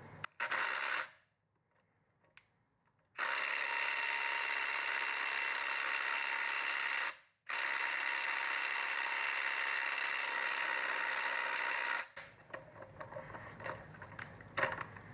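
Ryobi PSBID01 brushless compact impact driver hammering on a truck lug nut torqued to 120 ft-lb: a short burst near the start, then two steady runs of about four seconds each with a brief pause between them. The nut does not break free; the driver is not strong enough to loosen it. Faint clicks and handling follow near the end.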